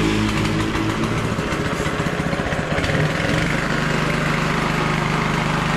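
Small 7 hp engine driving a grass chopper, running just after being pull-started. About three seconds in its speed drops and it settles into a steady idle.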